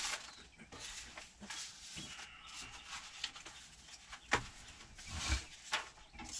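Sheets of paper rustling and shuffling as they are handled and leafed through, with a few louder rustles and a soft thump in the last two seconds.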